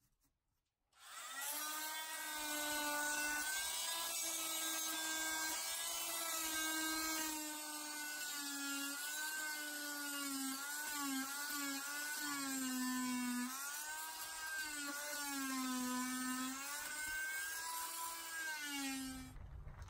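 Oscillating multi-tool running as it scrapes rotten lauan plywood off an aluminum frame beam: a steady buzzing whine whose pitch sags and recovers as the blade is pushed into the wood. It starts about a second in and stops just before the end.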